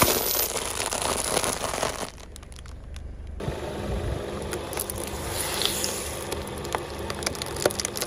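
A car tyre rolling onto a plastic packet, which crinkles and crackles loudly for about two seconds. Then comes a low rumble with scattered sharp plastic cracks as the tyre squashes a small plastic drink bottle until it bursts and squirts out its liquid near the end.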